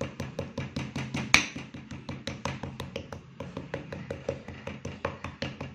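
Kitchen knife tapping rapidly and evenly on a plastic cutting board as it chops into a thin sheet of raw meat, about five taps a second, with one louder knock about a second and a half in. A steady low hum runs underneath.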